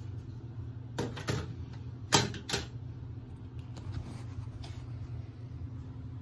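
Handling noise as the camera is picked up and repositioned: a few clicks and knocks, the loudest about two seconds in, over a steady low hum.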